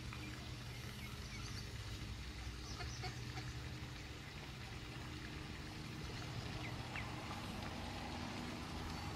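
A few short, faint calls from mallard ducks over a steady low mechanical hum.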